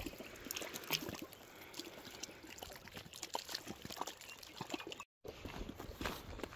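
Water trickling and splashing in a small stream, with many small irregular clicks. After a sudden cut about five seconds in, footsteps on a gravel walking track.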